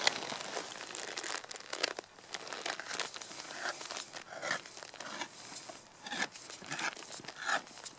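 Handheld can opener cutting around the tin lid of a can of fermented herring, with a series of irregular crunching, tearing strokes of the blade through the metal.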